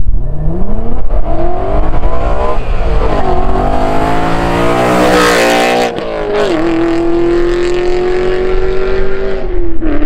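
BMW M3's S65 V8, running catless through test pipes and a Meisterschaft GT exhaust, accelerating hard past in a fly-by. The revs climb, shift about two and a half seconds in, and climb again to the loudest point as it passes around five seconds in. Then the note drops and holds a steady drone as the car pulls away.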